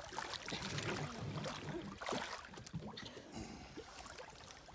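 Lake water lapping and sloshing around a small floating wooden dock.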